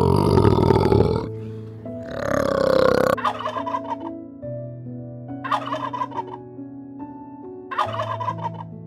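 Wild turkey gobbling in three short bursts, about two seconds apart, after two loud, rough calls in the first three seconds. Soft background music plays throughout.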